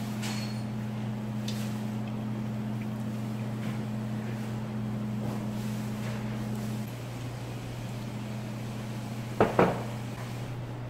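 Two sharp knocks close together near the end, ceramic tableware set down on a wooden table, over a steady low mechanical hum.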